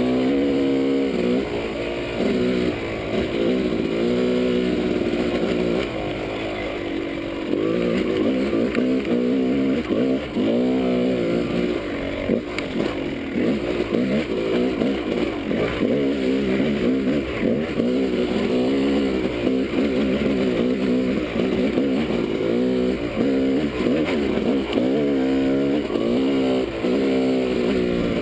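Yamaha dirt bike engine running on a trail ride, its pitch rising and falling all through as the throttle is opened and closed.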